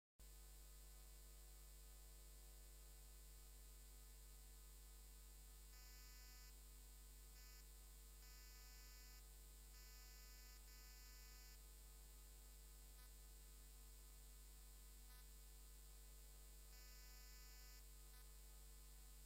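Near silence: a faint, steady electrical mains hum with overtones, starting abruptly out of dead silence just after the start.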